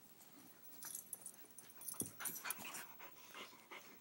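A Siberian husky puppy and an akita play-wrestling close to the microphone: irregular scuffling and brief dog noises, busiest around the middle.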